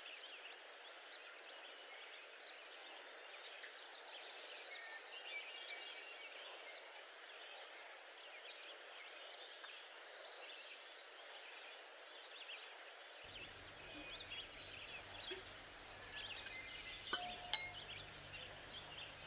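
Small birds chirping in the background. Near the end come a few sharp clinks of glass bowls and plates being set down.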